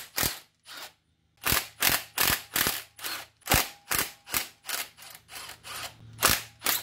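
Ratchet wrench clicking in quick repeated strokes, about three a second, while loosening the exhaust manifold nuts on a turbocharged engine. The strokes pause for about a second near the start and grow weaker over the last couple of seconds.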